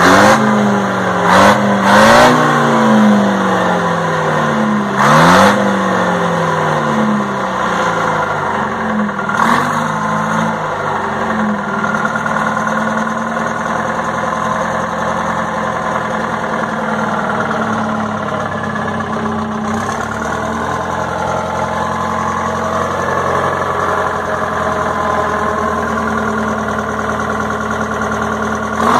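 Detroit Diesel 4-71 two-stroke inline four-cylinder diesel engine running, revved up and back down about four times over the first ten seconds, then settling into a steady idle.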